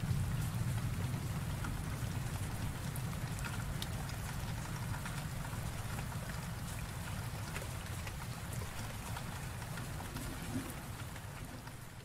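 Steady rain falling, with scattered individual drop taps over a constant hiss and a low rumble underneath. The rumble is tailing off from a thunderclap just as it begins, and the rain fades down near the end.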